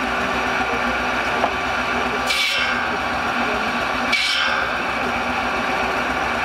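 Steam-driven circular saw bench running steadily, its blade cutting through a log twice. Each cut is a short, high rasp lasting about half a second, the first about two seconds in and the second under two seconds later.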